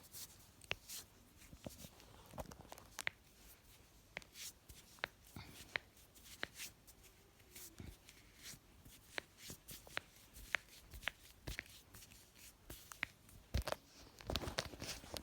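A person's joints cracking: a long, irregular series of small, sharp pops and clicks, about two dozen in all, with some rustling of movement near the end.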